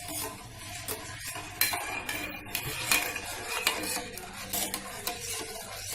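A metal spoon stirring and clinking against a metal pot or bowl, with repeated light clinks and scrapes.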